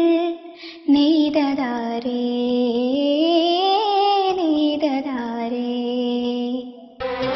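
A woman singing a slow melody alone, holding long notes and gliding between pitches. About seven seconds in, an instrumental backing with strings comes in.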